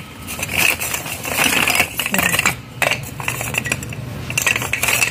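Small unglazed yellow-baked clay saucers clinking and clattering against one another as a hand sorts through a crate of them, in several bursts.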